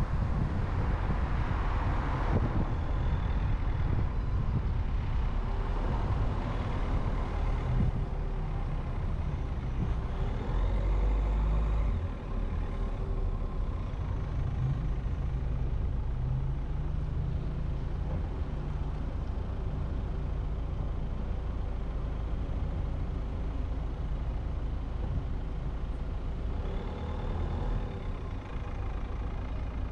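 Car driving through city streets: a steady low rumble of engine and road noise, with louder swells of passing traffic a few times.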